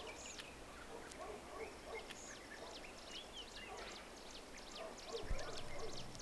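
Ambient small birds chirping in many quick, short, high calls, with a soft low thump near the end.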